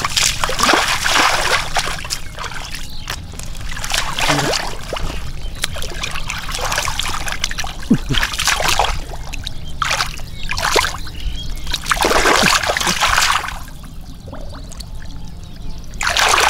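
Muddy water splashing and sloshing in irregular bursts every second or two as hands grope through shallow mud for catfish, over a steady low rumble.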